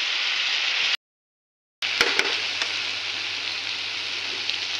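Diced ash gourd frying in a kadai, a steady sizzle, cooked with no water added. It cuts out for most of a second about a second in; when it comes back there are a few sharp clicks, then the sizzle runs on.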